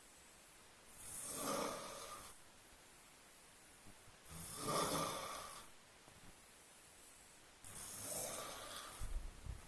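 Someone snoring in sleep: three long snores about three seconds apart, the middle one loudest, with a few low bumps near the end.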